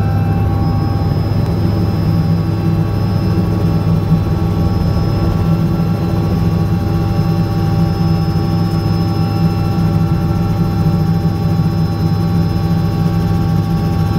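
Helicopter rotor and engine heard from inside the cabin in flight: a loud, steady drone with a strong low hum and a few faint high steady tones.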